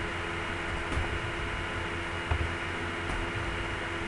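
Steady hiss and low hum of a recording's background noise, with a few faint clicks.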